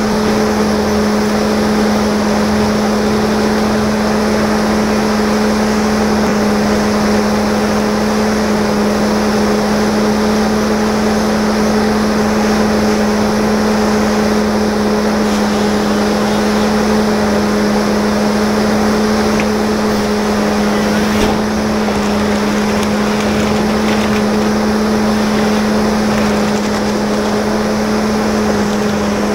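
Steady machine hum with a constant droning tone and a fainter overtone above it, never changing in pitch or level.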